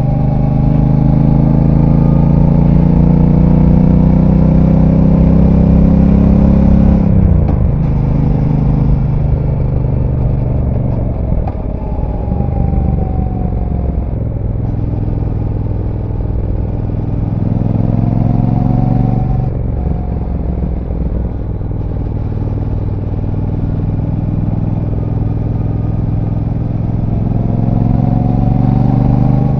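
Brixton Cromwell 1200's parallel-twin engine on its stock exhaust, heard from on board while riding. The engine pulls up through the revs for the first several seconds, then the throttle closes about a quarter of the way in and the pitch drops sharply. It picks up again briefly around two-thirds of the way in and climbs steadily toward the end.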